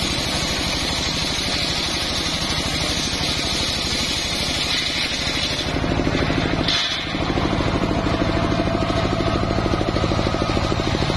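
Homemade engine-driven circular saw ripping a log of johar wood lengthwise: the blade's cutting noise over the engine's steady, rapid pulse. About six seconds in the sound briefly dips, then carries on a little louder.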